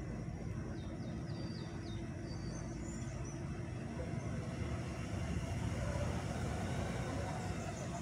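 Engine of a slow-moving car running with a steady low hum, heard from the vehicle itself.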